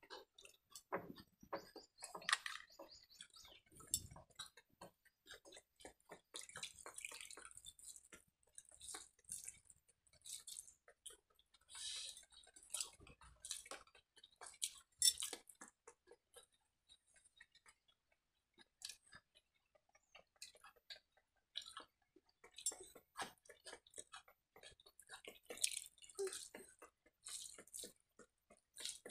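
Faint wet squishing and chewing as pakhala, cooked rice soaked in water, is mixed by hand in a steel bowl and eaten. Many short, scattered clicks and smacks.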